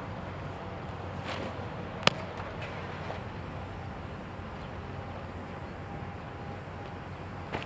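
A thrown baseball smacks into a catcher's leather mitt once, about two seconds in, a single sharp pop, with a smaller click near the end, over steady outdoor background noise.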